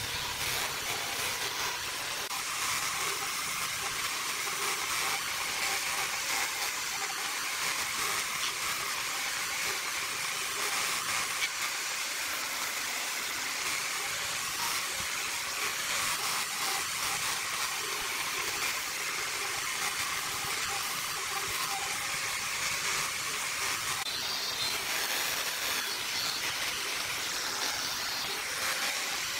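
Handheld electric angle grinder with a sanding attachment running steadily against wood, a constant hissing whir of abrasive on the surface of a wooden vase.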